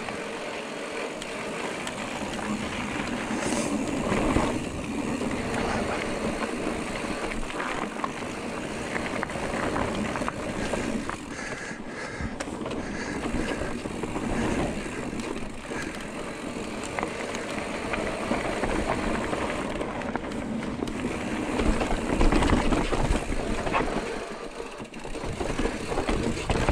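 Giant Trance E+3 electric mountain bike being ridden down a trail: a continuous rush of tyre and wind noise with scattered rattles and knocks from the bike, getting louder near the end.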